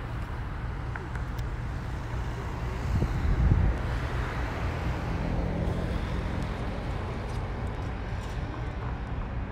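Street traffic: a steady low rumble of passing vehicles. It swells briefly about three seconds in, and a steady engine hum comes through midway.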